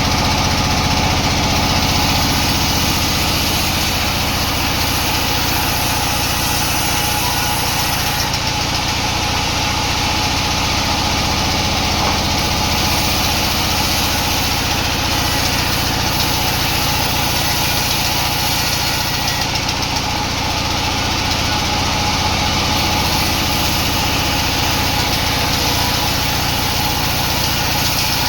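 Sawmill machinery running steadily: a continuous, even mechanical drone with a low hum.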